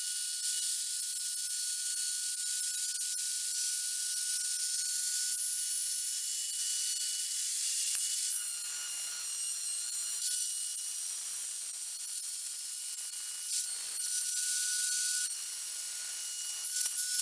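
Plunge router fitted with a small template bit and guide bushing, running at a steady high whine while it cuts through a template into the wood, routing out a recess for an inlay patch. The cutting noise gets louder about eight seconds in as the bit hogs out material, with a few brief dips as it is moved.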